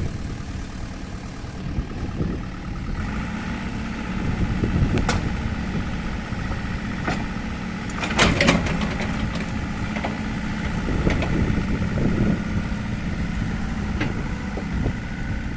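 Excavator's diesel engine running steadily, with scattered sharp knocks over it. The loudest knocks come in a quick cluster about eight seconds in.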